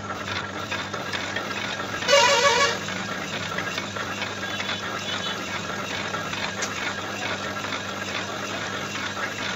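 A lathe turns a cast-iron rotavator housing while a boring bar cuts inside its bore, enlarging it for a sleeve. The machine runs steadily with a low hum. About two seconds in, a loud horn-like toot lasts about half a second.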